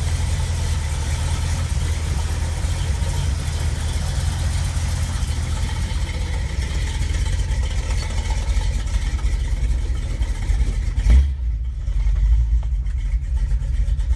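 1985 Chevy C10's 350 small-block V8 idling steadily while still a touch cold, not yet settled to its warm idle. A single thump about eleven seconds in.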